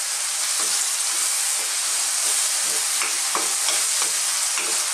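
Chopped onion, tomato and chilli sizzling in hot oil in a wok, stirred with a wooden spoon that scrapes against the pan in short, repeated strokes over a steady frying hiss.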